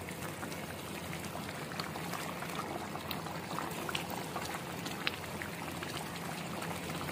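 Chicken in a thick yogurt gravy bubbling steadily in an open pan over a medium-low flame, with scattered small pops. The liquid is cooking down and the oil is slowly beginning to separate.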